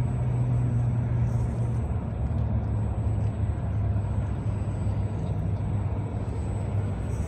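A 1/10-scale Rochobby Mashigan RC trail truck's electric motor and drivetrain running at crawling speed as it climbs through mud and dry grass: a steady low hum.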